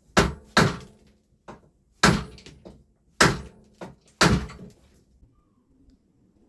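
Hammer blows knocking an old headset bearing cup out of a bicycle's head tube: a series of sharp metallic knocks, about five hard strikes and a couple of lighter taps at uneven intervals over about four seconds.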